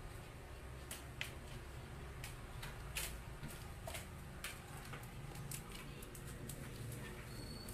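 Faint, irregular clicks and taps of a puppy's claws on a tile floor as it paws and pounces at a cockroach.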